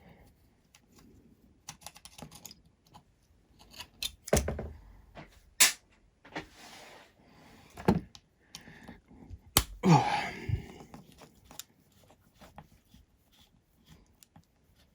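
Small tools and hexacopter frame parts handled at close range during screw work: scattered sharp clicks and knocks, with a few short scraping sounds.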